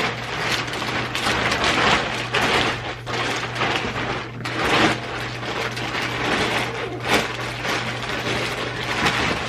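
Plastic packaging rustling and crinkling in uneven bursts as a crib mattress is unwrapped and handled, over a steady low hum.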